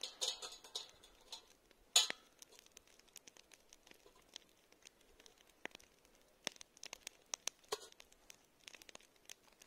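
Small sharp clinks and taps of a spoon against a metal camp pot while tea is being brewed, with light rustling between them; the sharpest clink comes about two seconds in.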